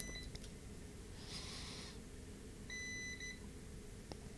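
Digital multimeter beeping twice as the probes are set on the board in diode mode: a short beep at the start and a longer one under a second long, nearly three seconds in. A brief soft hiss falls between them.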